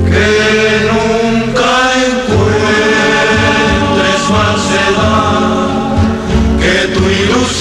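Music with voices singing over a steady bass line, broadcast on FM radio.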